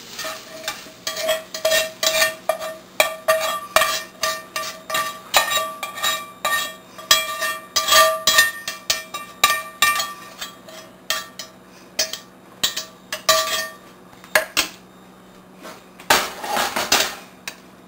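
Metal spatula knocking and scraping against a cast-iron skillet, rapid irregular clanks with a short metallic ring, as cooked onions and peppers are scraped out into a ceramic slow-cooker crock. The clatter stops about 14 seconds in.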